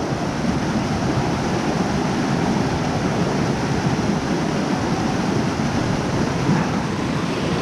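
Steady rush of a small mountain trout stream running over rocks.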